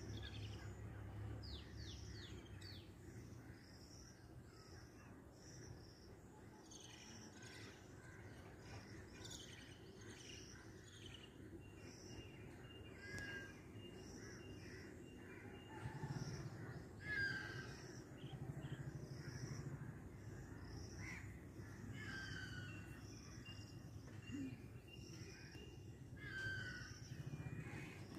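Faint birds calling: many short high chirps throughout, with a few lower, falling calls now and then.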